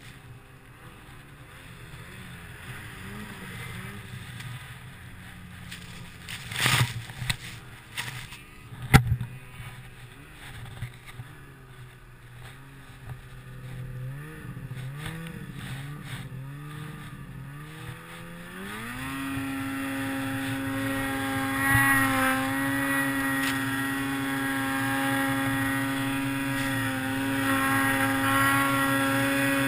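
2008 Ski-Doo Summit 800 two-stroke snowmobile engine. For most of the first two thirds its pitch rises and falls with short blips of throttle, with two sharp knocks about a quarter of the way in. Then it revs up and holds a steady high pitch at full throttle through deep powder.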